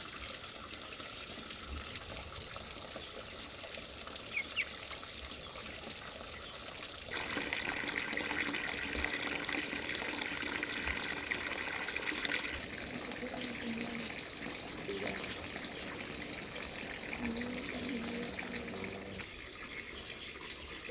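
Running water, a steady rushing that gets suddenly louder about a third of the way in and drops back again about five seconds later.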